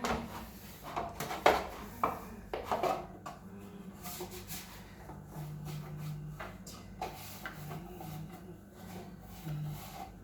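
Scattered knocks and clatter of food containers and fridge drawers being handled and set down. Several sharp knocks come in the first three seconds and lighter ones after, over a steady low hum.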